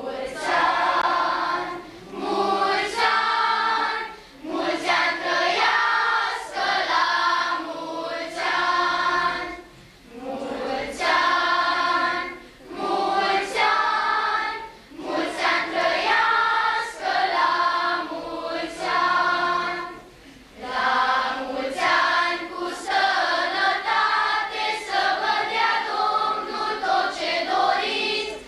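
Children's school choir singing under a conductor, in phrases broken by short pauses every few seconds.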